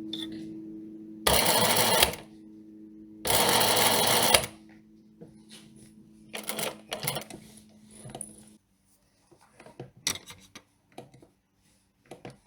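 Sewing machine stitching in two short runs of about a second each, with scattered clicks and short rattles of the mechanism between and after. A steady low hum runs under it and stops about two-thirds of the way through.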